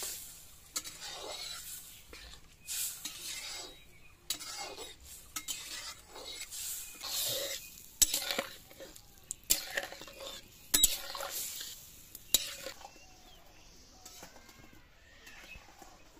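Flat metal spatula stirring a vegetable and Malabar spinach curry in a metal kadai: irregular scraping strokes with sharp clinks of metal on the pan, the loudest around eight and eleven seconds in. The stirring stops near the end.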